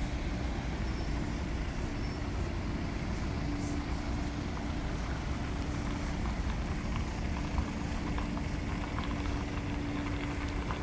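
Steady low rumble of queued cars' engines idling, with a constant droning hum.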